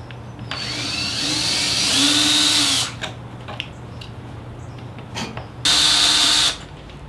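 DeWalt 18V cordless drill-driver backing out hinge screws. A run of about two and a half seconds with the motor pitch rising, a few light clicks, then a second short burst near the end.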